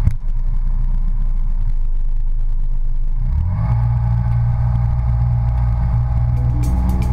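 Outboard motor running under way, its pitch rising about three seconds in and then holding steady, over a low rumble of wind on the microphone.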